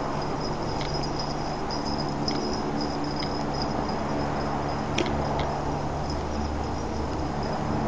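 Steady running of a vehicle that is following down a road, a low engine drone under road and wind noise. A thin, steady high-pitched tone runs over it, with a few faint clicks.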